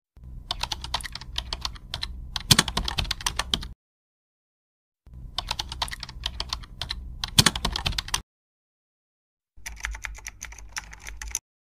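Computer keyboard typing sound effect: three bursts of rapid key clicks, each a few seconds long, cutting off abruptly between them.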